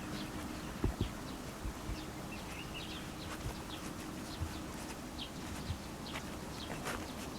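Outdoor ambience: short bird chirps scattered over a steady low hum, with a few soft low knocks.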